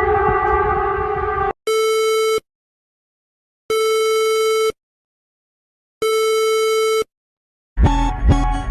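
Emergency alert tones: a steady multi-tone alarm cuts off about a second and a half in, followed by three long beeps of about a second each, separated by silent gaps. Music with plucked guitar-like notes starts near the end.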